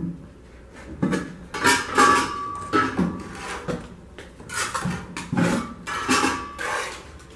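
Hollow ceramic vent block knocking and scraping against the rim and sides of a galvanized metal bin as it is dipped and turned: a string of clinks and scrapes, one ringing briefly about two seconds in.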